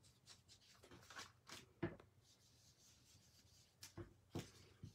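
Faint soft scuffing of an ink blending brush being worked around the edges of cardstock and dabbed on an ink pad, with several light taps.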